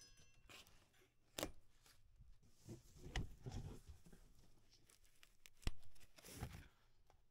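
Faint rustling and scraping of a cardboard shipping box and foam packing being handled while a bike is unboxed, with a few sharp clicks or knocks, the sharpest about a second and a half in and again near six seconds.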